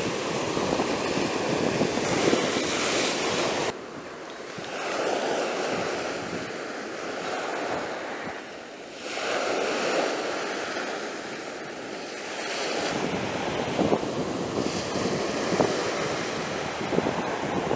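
Small surf breaking and washing up a sandy beach, the wash rising and falling every few seconds. Wind buffets the microphone at the start and again in the last few seconds, then drops off suddenly a little under four seconds in.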